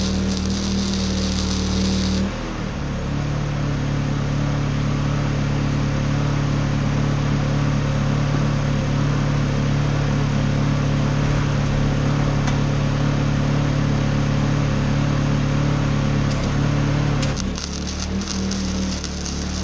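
Honda EU2000i inverter generator running under a welder's load. Its engine note shifts about two seconds in and shifts back near the end: the generator surging as the welder's power draw changes.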